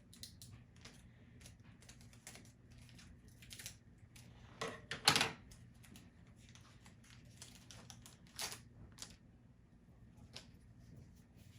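A Pokémon booster pack being handled and opened: scattered light clicks and crinkles of the foil wrapper and cards, with a louder crinkle about five seconds in and another near eight and a half seconds.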